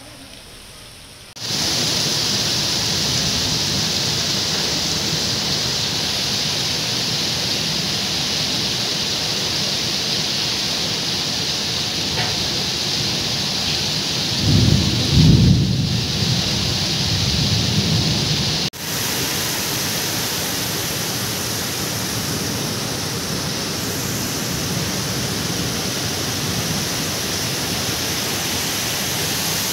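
Heavy rain falling in a steady hiss, with a low rumble of thunder about halfway through. The rain sound breaks off for an instant about two-thirds through and resumes.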